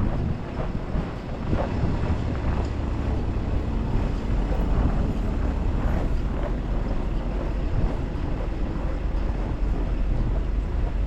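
Blizzard wind buffeting the microphone, a steady low rumble that swells and eases.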